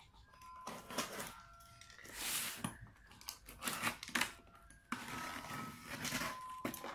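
Box cutter slitting the taped seam of a long cardboard box, with irregular scrapes and sharp clicks as the cardboard lid is cut and pried up.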